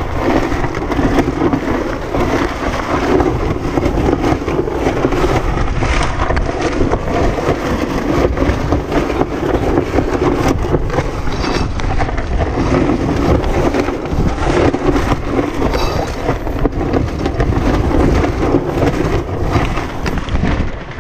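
Loud, gusty wind buffeting the microphone on a sailboat, mixed with water rushing along the hull. It is a continuous rumble without breaks.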